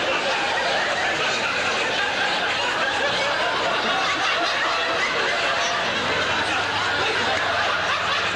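Studio audience laughing, long and sustained, at a steady level.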